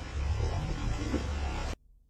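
Low rumbling noise out on the open sea, with water splashing as a hooked fish thrashes at the side of the boat; the sound cuts off suddenly near the end.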